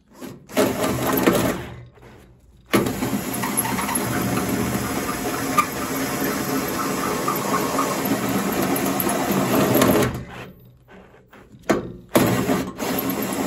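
Power drill with a hole saw cutting through the sheet-metal casing of a spin dryer, nearly through. A short burst comes first, then about seven seconds of steady cutting that stops about ten seconds in, then a few brief bursts near the end.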